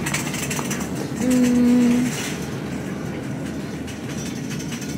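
Supermarket background clatter and rattle, with one steady low hum lasting about a second, about a second in.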